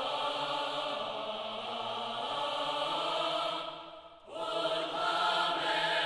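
Background music of long held chords, steady with no beat. It fades out briefly about four seconds in, then a new chord comes in.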